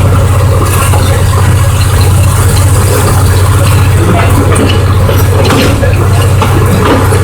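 Small tourist-train locomotive's engine running steadily, a loud low drone, with light clatter over it.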